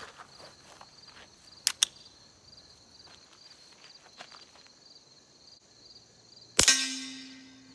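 Single suppressed shot from an FN 502 .22 LR pistol firing a CCI Quiet round near the end, followed by about a second of ringing. Two sharp clicks come about two seconds in. The low-powered round is too weak to cycle the action. Crickets chirp steadily throughout.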